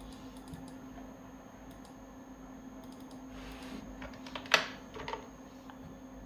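Computer keyboard keys and mouse clicks tapping lightly and irregularly, with one sharper, louder click about four and a half seconds in and a smaller one just after. A faint steady low hum runs underneath.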